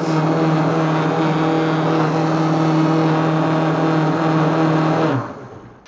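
Vitamix blender motor running loud and steady at one pitch, then fading away about five seconds in.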